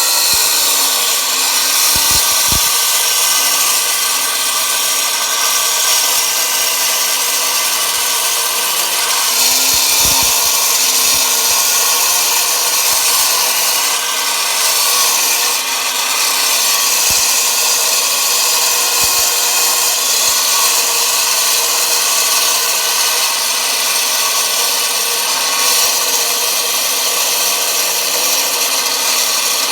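Spun concrete pile cutting machine running and sawing through the concrete pile: a loud, steady grinding hiss with a whine, and a few short knocks.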